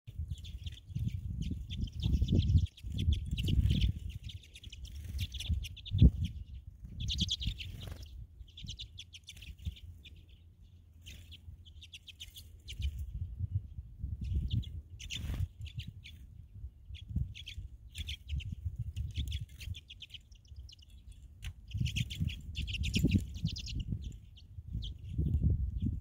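Small songbirds chirping and twittering in quick runs of high notes, on and off throughout, with gusts of wind rumbling on the microphone.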